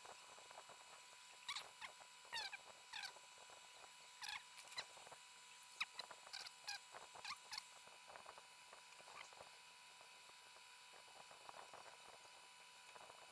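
Faint, short high-pitched chirps or squeaks, about a dozen in the first eight seconds, each sliding down in pitch, over a faint steady background.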